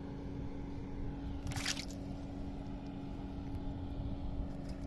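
A steady low motor hum holding one constant tone, with a brief scuffing noise about a second and a half in.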